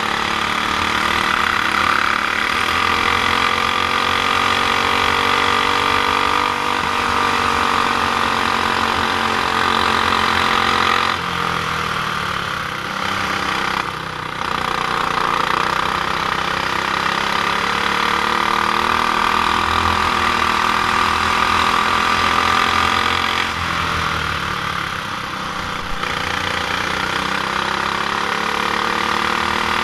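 Stock Honda GX390 single-cylinder four-stroke kart engine running hard on track; its pitch drops twice, about a third of the way in and again about three-quarters in, then climbs back up.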